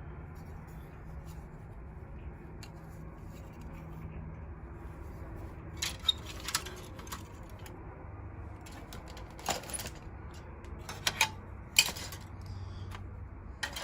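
Plastic model kit parts and their bags being handled: scattered light clicks and crinkles, a few in quick pairs, mostly in the second half, over a low steady hum.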